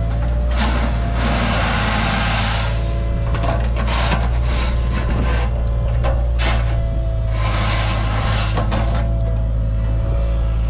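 Cat 303.5 mini excavator's diesel engine running steadily under a faint steady whine, while its steel bucket scrapes and drags through crushed stone in repeated gritty bursts.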